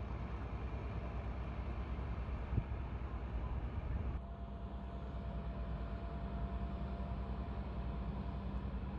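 An engine running steadily with a fast, even low throb, with one short knock about two and a half seconds in.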